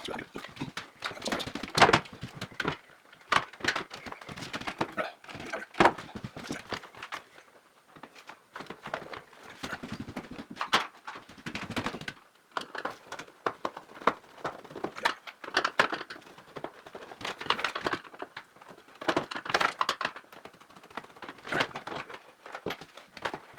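Irregular clicks, knocks and rustling of network equipment and cables being handled while an old network cabinet is dismantled, with a sharper knock every second or so.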